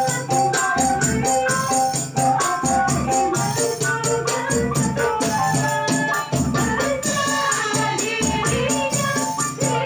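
Sholawat song performed by a qasidah group: women singing a melody over a steady, quick tambourine beat.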